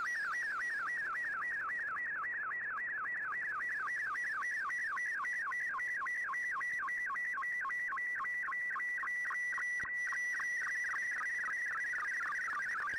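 Shortwave digital picture signal from the Shortwave Radiogram broadcast, received on an Icom IC-R8600: a warbling tone that sweeps rapidly and repeatedly between a higher and a lower pitch, about five sweeps a second, as an image is sent in fldigi's MFSK picture mode. The sweeps flatten toward a steadier high tone for a few seconds after the middle, and there is one faint click near the end.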